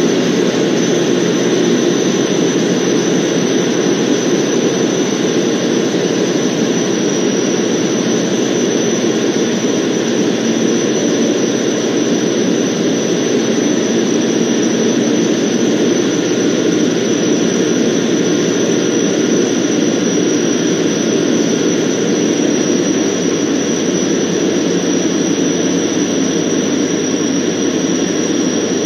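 Van's RV-12's Rotax 912 four-cylinder engine and propeller running steadily in flight, heard from inside the cockpit as a constant loud drone with a thin high tone above it.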